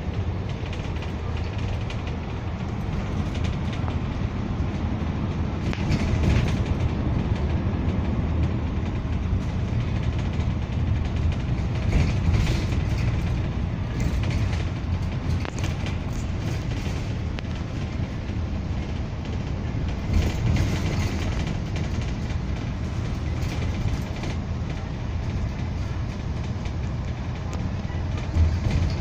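Steady rumble of a moving bus heard from inside the cabin: engine and road noise, with brief rattles a few times.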